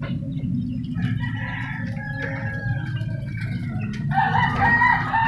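Rooster crowing, one long drawn-out crow starting about four seconds in, with shorter fowl calls before it, over a steady low hum.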